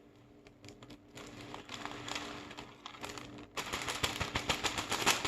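Small foam beads being poured out in quantity, a patter of light clicks that grows into a dense, louder crackle about three and a half seconds in.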